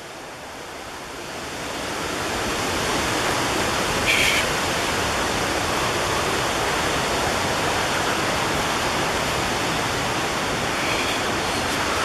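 Rushing water of the river cascading over Buttermilk Falls, a steady rush that grows louder over the first two seconds and then holds. A brief high-pitched sound cuts in about four seconds in.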